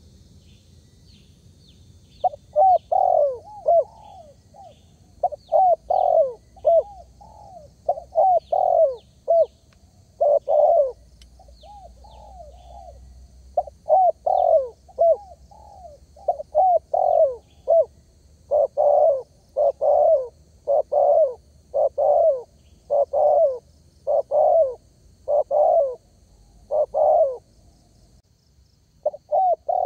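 Spotted dove cooing in repeated rhythmic phrases of low hooting notes, starting about two seconds in, with a short break about a third of the way through. Faint high chirps of small birds sound behind it.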